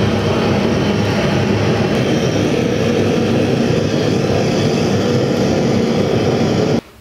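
Handheld gas blowtorch on a blue gas cartridge burning steadily and loudly as it heats copper pipe joints for soldering; the sound stops abruptly near the end.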